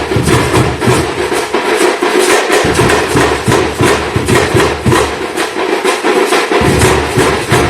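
A troupe of Tamil temple-festival drums played loud and fast, a dense run of strokes several to the second with a deep low beat that drops out for moments and comes back.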